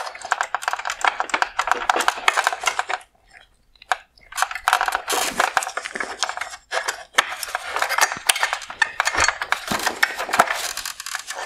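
Plastic clicking and rattling of a wire harness clip and the headlight's plastic housing being worked loose by hand, dense and irregular, with a short pause about three seconds in.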